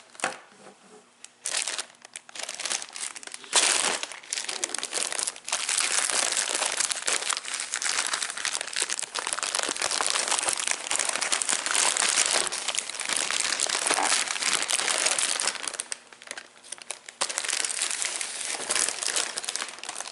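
Plastic LEGO parts bags crinkling as they are handled, with a few short pauses: one early on and one about sixteen seconds in.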